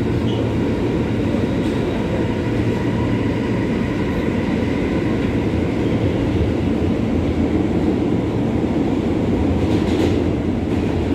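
An L train subway car running at speed, heard from inside: steady wheel-on-rail and car noise, with a faint steady whine above it and a brief swell of hiss about ten seconds in.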